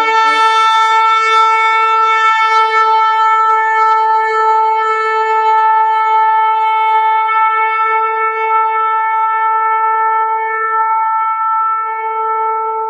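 A horn blowing one long, steady held note that fades away near the end.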